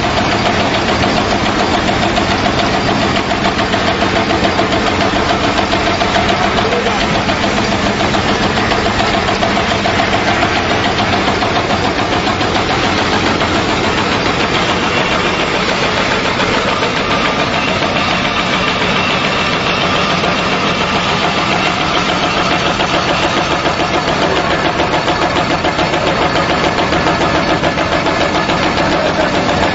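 Stainless-steel dried-chili strip-cutting machine running steadily, its motor-driven blade chopping in a fast, even chatter as dried chilies are fed through and cut into strips.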